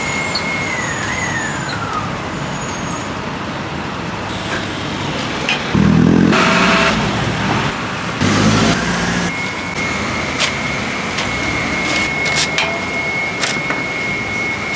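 Street traffic, with a motor vehicle's engine swelling loudly close by twice, about six and eight and a half seconds in, over a steady high whine. Scattered sharp clicks are heard in the second half.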